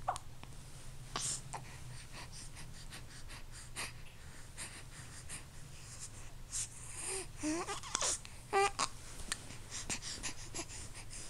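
A baby hiccuping: sharp, short hiccups at the start, about a second in and again at the very end, with soft breaths and a few short wavering whimpers or coos about seven to nine seconds in.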